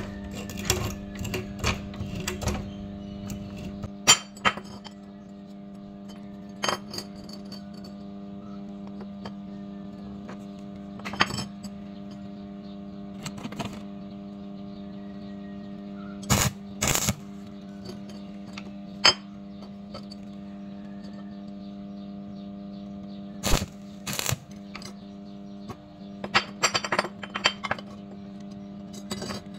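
Mitre-cut square steel tube pieces set down, shifted and fitted together on a steel workbench: scattered metallic clinks and knocks, some single and some in quick clusters near the start, in the middle and near the end, over a steady hum.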